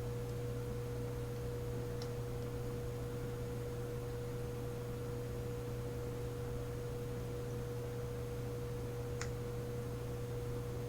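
Steady electrical hum with a steady higher tone over it, and two faint light clicks, about two seconds in and near the end, from a lock pick working the pins of a pin-tumbler lock.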